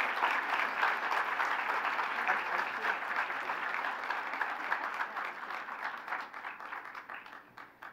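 Audience applauding, a steady patter of many hands clapping that thins out and dies away over the last few seconds.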